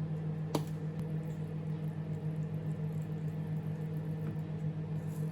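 Microwave oven running with a steady electrical hum. A single sharp click comes about half a second in.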